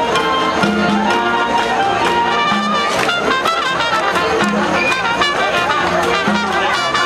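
A live street orchestra playing, with brass such as trumpets and trombones carrying the melody over a low note that recurs about every two seconds and light percussion.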